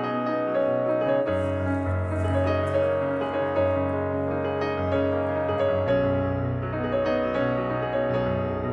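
Background music: a soft piano piece of held chords, the chord changing about a second in and again just before six seconds.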